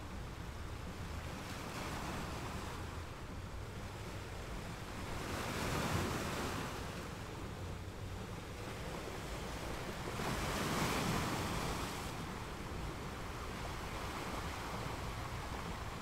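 Ocean surf washing steadily on a shore, with two waves swelling louder as they break, about six and eleven seconds in.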